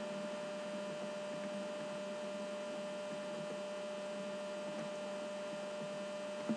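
Steady electrical hum with a constant whine from the recording chain. A single faint click comes near the end.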